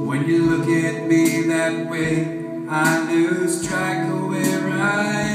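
A man singing live to his own guitar over a steady beat.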